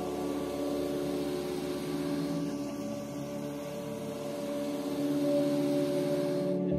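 Background ambient music of sustained, layered tones, with the chord shifting about five seconds in.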